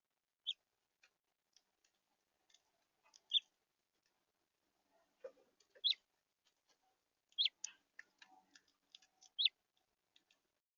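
House finches calling: short, sharp chirps that sweep downward, about every two seconds, with fainter ticking notes in between.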